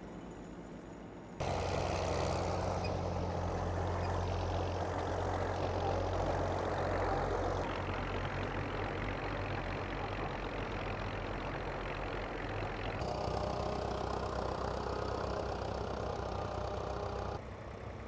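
Vintage farm tractor engines running steadily as they pull ploughs, with a deep hum. The sound changes abruptly several times as one tractor's engine gives way to another's.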